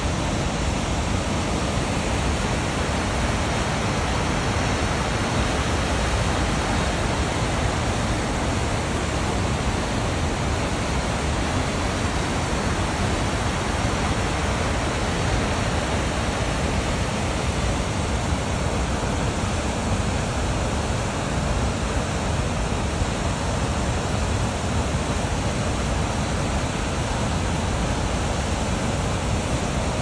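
Goðafoss waterfall's steady roar: a constant, even rushing of water.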